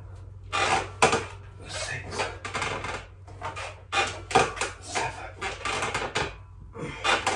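Weight bench clattering and creaking in bunches of metallic knocks and rattles as the legs are raised and lowered through leg raises, over a steady low hum.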